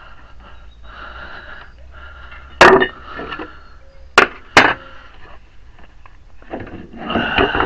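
Tools and parts knocking at a metal lathe during a chuck change. There are three sharp knocks, one about two and a half seconds in and two close together about four seconds in, with softer scraping between them over a low steady hum.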